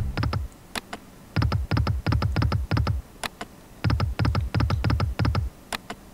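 Sound effects of the EGT Egypt Sky online slot game as it is spun: each spin ends in a quick run of short clicky thuds with a falling pitch as the reels stop one after another. There are two such runs, each about a second and a half long, with a single sharp click between them.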